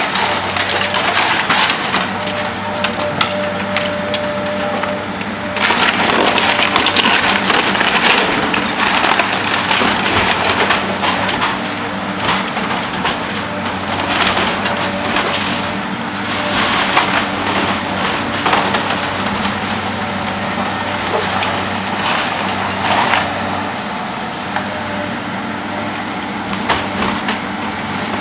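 A wooden house being demolished: timber crushing, cracking and splintering in repeated surges over the steady running of a heavy machine's engine.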